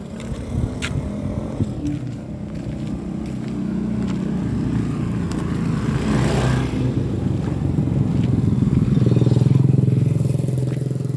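A truck's diesel engine running close by, its hum growing louder and fuller from about nine seconds in. A rush of tyre-on-gravel noise swells and fades around the middle.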